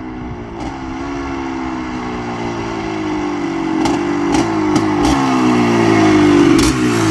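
ATK 406 dirt bike engine running and getting steadily louder as it comes closer, its revs slowly easing off, with a few short ticks near the end.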